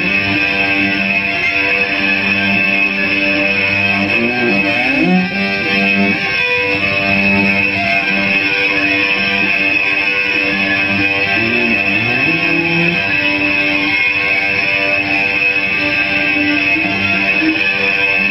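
Amplified cello bowed into sustained, distorted droning tones, with a steady high ring of feedback held underneath. Sliding notes bend the pitch about four seconds in and again near twelve seconds.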